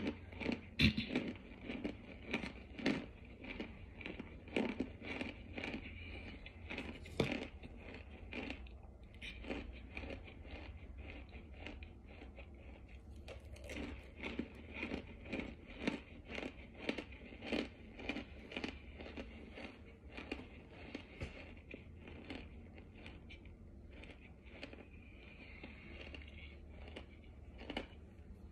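Close chewing of dry starch chunks: short crunches come in quick runs of about two a second, thinning out through the middle and near the end.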